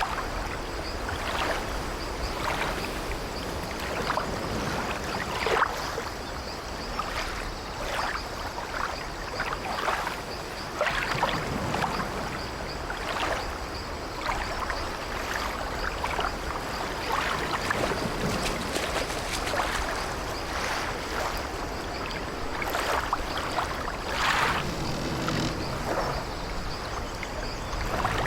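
Old wooden sailing ship's timbers creaking irregularly over a steady wash of sea waves and water against the hull.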